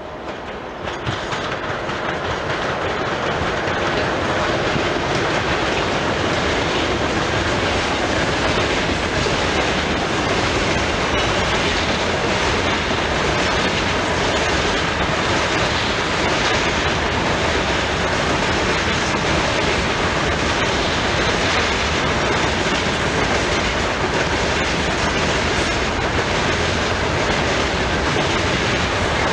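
Freight train hauled by a three-section 3ES4K electric locomotive passing close by: the locomotive goes by in the first few seconds, then a long string of hopper wagons rolls past with the steady rumble and clatter of wheels on the rails. The sound swells over the first four seconds and then holds steady.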